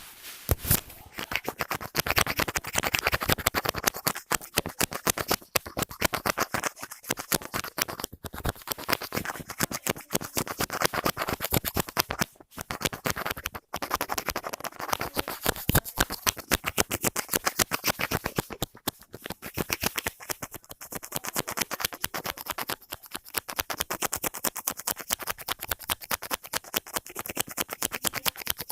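ASMR scratching and tapping sounds: a dense, rapid run of small sharp clicks and scratches, with a few brief pauses.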